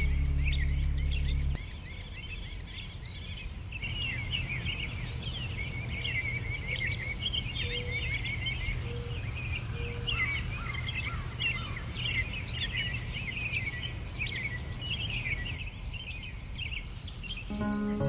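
Forest ambience: many small birds chirping and singing, over a steady, rapidly pulsing high chirp. Background music cuts out about a second and a half in and comes back near the end.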